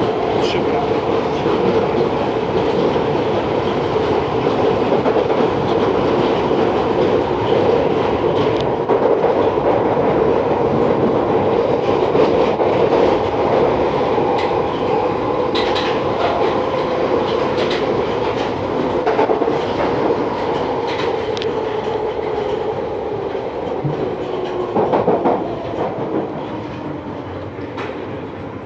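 London Underground 1973 Tube Stock train heard from inside the carriage, running through a tunnel: a loud steady rumble with a droning hum and scattered clicks of the wheels over rail joints. Near the end the noise eases off as the train slows into a station.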